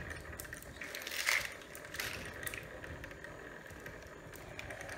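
Coins shifting and clinking inside a plastic coin-counting piggy bank jar as it is picked up and handled, with scattered faint clicks and rustles, the loudest about a second in.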